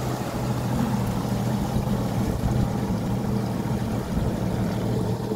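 An engine running steadily with an even hum, holding one pitch without revving.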